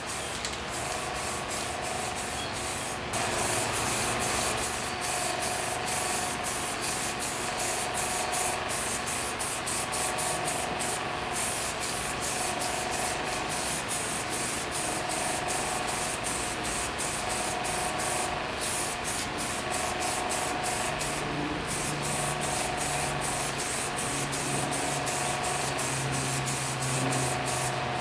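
Aerosol spray-paint can spraying, a loud hiss that starts about three seconds in and runs on in many short passes with brief breaks between them.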